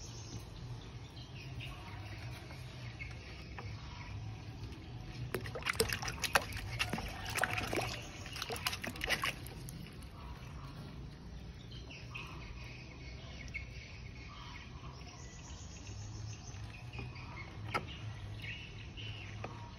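Water splashing and sloshing in a snapping turtle's tub, with a cluster of sharp splashes and knocks from about five to nine and a half seconds in, over a steady low hum.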